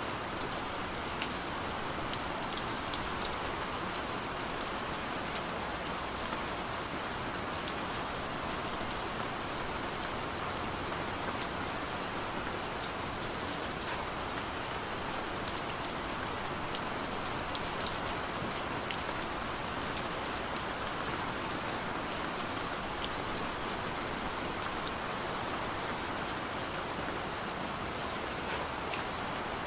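Steady gentle rain, an even hiss of falling rain with many small, distinct drop ticks scattered through it.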